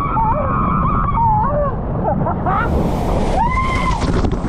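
Riders screaming while shooting down an enclosed water slide, over a steady rush of water and rumble of the tube. One long scream rises and falls about three and a half seconds in.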